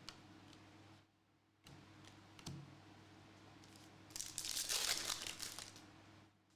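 A foil wrapper on a pack of 2021-22 Hoops basketball cards crinkling as it is torn open and crumpled. A loud burst of crackling comes about four seconds in and lasts about two seconds, after faint light ticks of card handling.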